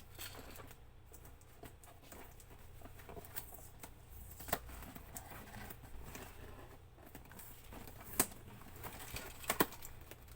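A plastic toy and its packaging being handled: scattered clicks, taps and light crinkling, with a few sharper clicks near the end.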